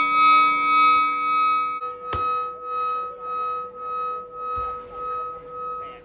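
A bell ringing out with a slow pulsing hum, struck again about two seconds in: the signal that a round is starting.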